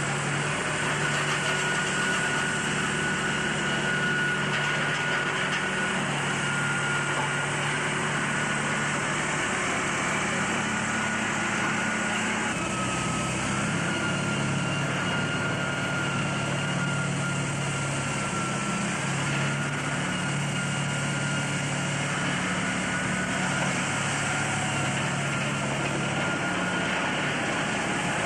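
Steady running of a heavy machine's diesel engine, such as an earth-moving loader, with a thin high whine over it.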